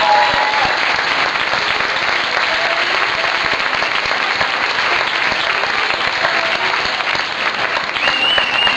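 Theatre audience applauding steadily, a dense wash of many hands clapping, with a few voices calling out over it and a higher call near the end.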